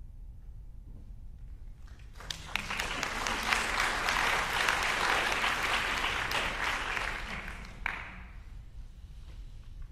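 Audience applauding, a dense patter of many hands that starts about two seconds in, lasts about six seconds and stops with a last sharp clap near the end.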